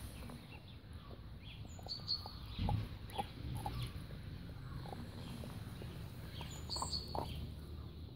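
A dog chewing and gnawing a raw goat's neck: irregular wet crunches and clicks of teeth on meat and bone, with a louder crunch just under three seconds in.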